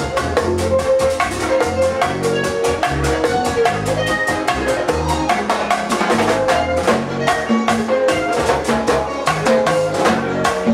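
Live band playing: guitar and keyboard over a fast, even percussion beat with bass.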